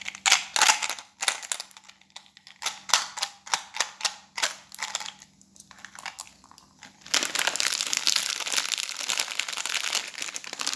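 Plastic candy wrappers crinkling as they are handled: a run of separate crackles and clicks, then from about seven seconds in a dense, continuous crinkling that stops near the end.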